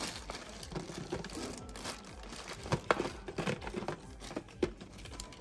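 Crinkling and rustling with many small, irregular clicks and knocks as plastic toy ponies and their packaging are handled.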